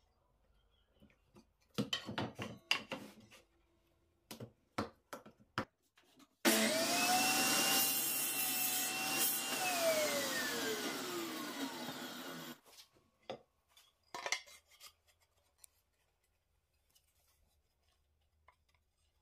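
Table saw motor starting and running at full speed as a crosscut sled feeds a board through the blade. Then it is switched off, its pitch falling as the blade spins down, before the sound cuts off abruptly. Before and after the saw run come a few sharp knocks and clicks from the sled's toggle clamps and the wood being handled.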